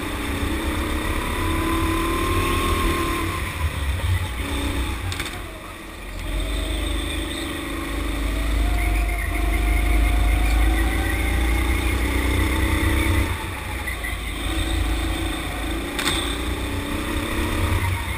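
Rental go-kart engine heard from onboard, revving up along the straights and easing off into the corners, its pitch rising and falling, with two brief sharp knocks.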